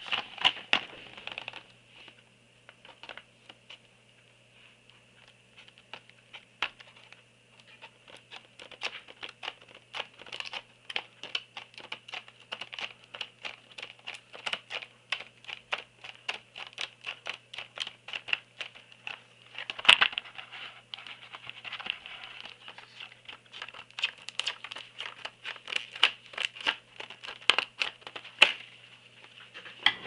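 Scissors cutting through a stiff clear plastic blister pack, with many sharp snips, clicks and crackles of the plastic. The clicks are sparse at first, then come thick and fast, with one louder snap about two-thirds of the way through.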